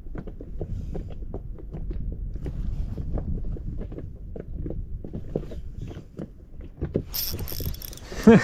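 Wind buffeting the microphone on a small inflatable boat, with scattered light clicks and knocks as a small perch is worked on an ultralight spinning rod. About seven seconds in comes a brief hissing splash, with a sharp knock just before the end.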